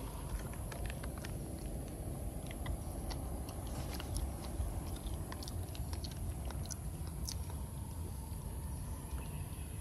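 Scattered small, irregular clicks over a steady low rumble.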